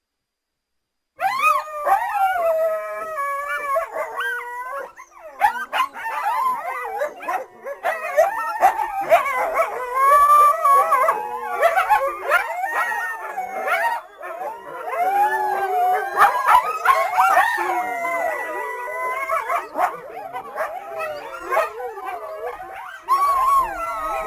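A group of coyotes yipping and howling together, many high, wavering voices overlapping in a dense chorus that starts about a second in.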